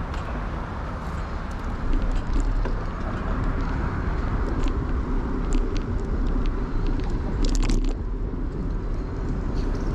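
Street traffic and road noise heard from a moving bicycle: a steady low rumble under a hiss of passing cars, with scattered small clicks and rattles, a cluster of them about three-quarters of the way in.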